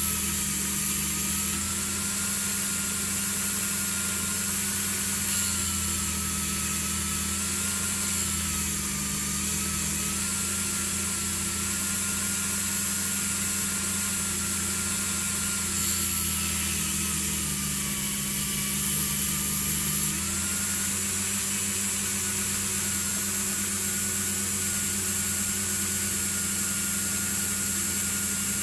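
Small electric power tool motor running steadily with a high whine that dips slightly a few times, over a low hum, as it is used to polish a small metal part.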